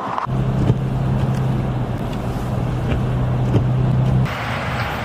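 A vehicle engine running with a steady low hum over a rushing background noise, cut off abruptly about four seconds in and replaced by a broader hiss.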